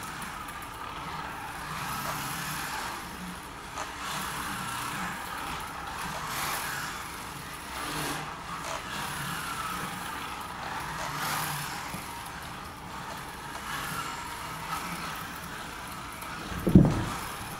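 Kyosho Mini-Z radio-controlled car with a Subaru Sambar kei truck body driving on a hardwood floor: its small electric motor and gears whine, rising and falling in pitch as it speeds up and slows, over the hiss of the tyres. A single loud knock comes near the end.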